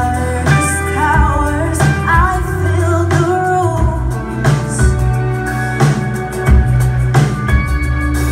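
Live band music heard from the audience: a woman's voice singing a wavering melody, strongest in the first half, over electric guitars, bass, keyboard and drums keeping a steady beat.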